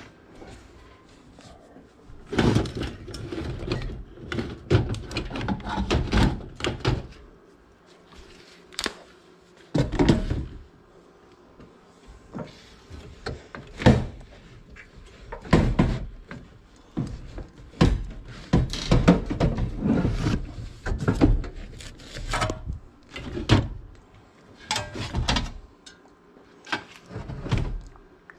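Irregular clunks, knocks and rustling from parts and wiring being handled at an open air handler cabinet, with short quiet gaps between.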